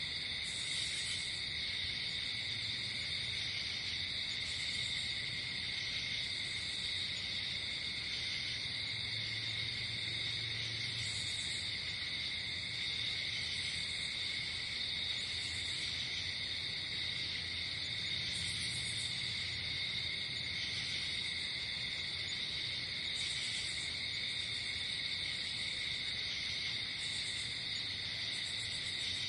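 Night insect chorus: crickets trilling in an unbroken steady drone, with short higher chirps from other insects every second or two.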